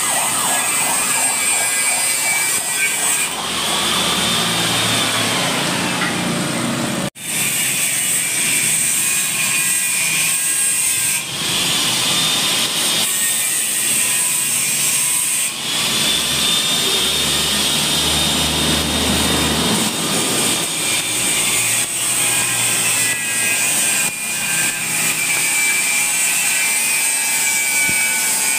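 Electric grinder working a metal motorcycle exhaust pipe: a steady grinding whine whose pitch sags and recovers as it bears on the metal. It cuts off sharply for an instant about seven seconds in.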